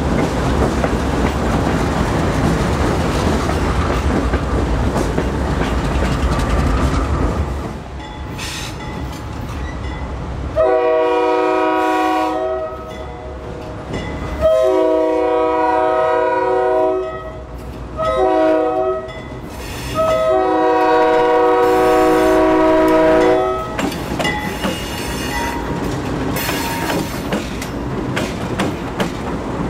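GE C40-8 diesel locomotive running close by with a low rumble, then its air horn sounding a chord of several notes in the grade-crossing pattern: two long blasts, a short one and a long one.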